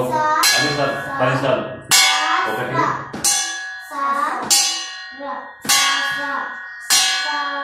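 A stainless steel plate struck with a stick as a bell, six times at an even pace about a second and a quarter apart, each clang ringing on and fading.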